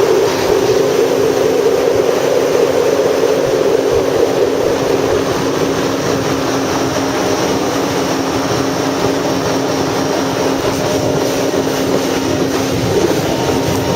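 Jet ski engine running steadily at speed, with a constant drone that is strongest in the first few seconds and again near the end.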